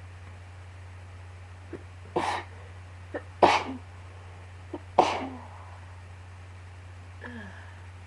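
A person sneezing three times in a row, about a second and a half apart, with a brief catch of breath just before each sneeze. The second and third sneezes are the loudest.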